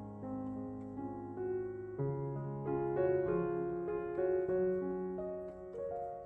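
Background music: a gentle solo piano piece, with notes changing every half second or so.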